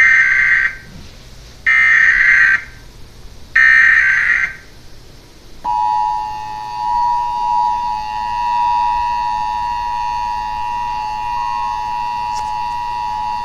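Emergency Alert System activation: three roughly one-second bursts of SAME digital header data, then the two-tone EAS attention signal held steady for about eight seconds, marking the start of a national EAS test.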